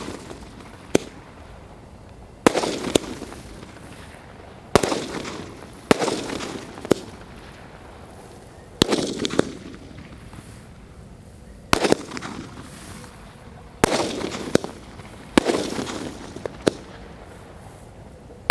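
12-shot aerial firework cake firing: a sharp bang every one to three seconds, about a dozen in all, each trailing off in a short fading hiss as the small shells burst overhead.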